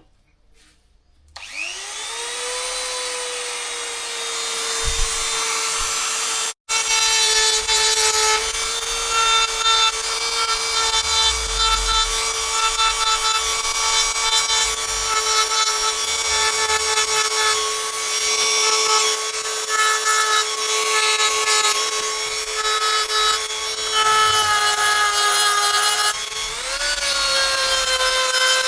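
A high-speed rotary engraving tool spins up with a rising whine about a second and a half in, then runs at a steady high whine while its bit grinds and scratches into wood. The sound cuts out for an instant about six and a half seconds in, and the whine rises in pitch near the end.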